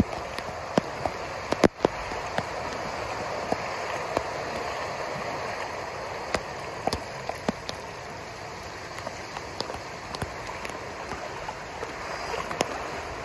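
Floodwater flowing across a yard, a steady rushing hiss, with scattered sharp ticks and one louder knock about a second and a half in.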